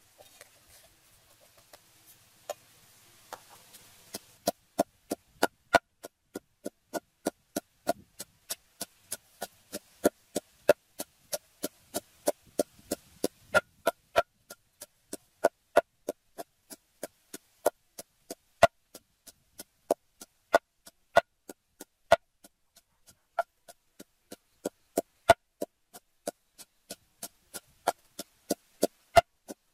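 Wooden pestle pounding sliced lemongrass and other aromatics in a large wooden mortar. The pounding starts about four seconds in, after a few soft knocks, and then runs at a steady two to three knocks a second, each ringing at the same pitch.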